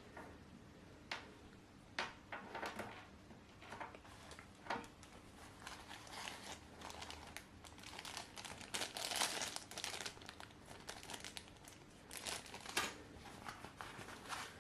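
Plastic packaging crinkling and rustling with scattered light clicks as the microphone's carry pouch and its contents are handled, busiest about two thirds of the way through.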